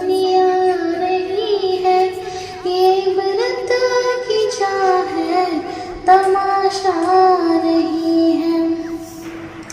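A single high voice singing an Urdu nazm in long held, bending notes. Near the end the singing fades into a rush of wind noise.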